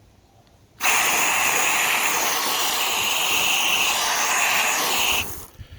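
Hose-end foam sprayer on a garden hose spraying a steady hiss of water, set to 0 so it sprays plain water with no soap. It starts abruptly about a second in and cuts off about a second before the end.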